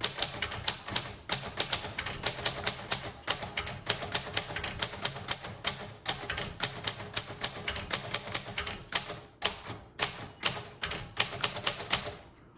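1938 Royal Model O manual typewriter being typed on: a steady run of sharp key strikes, about four a second, with brief pauses between words.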